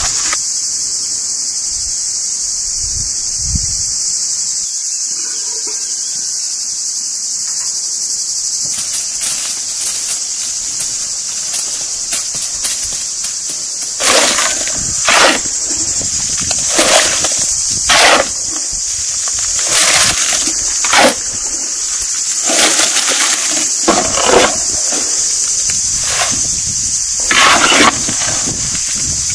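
Wet concrete mix being worked by hand. A trowel spreads it at first, then mix is slopped out of a bucket and a shovel scrapes in a wheelbarrow, making a run of short scraping bursts from about halfway on. Under it all runs a steady high-pitched drone of insects.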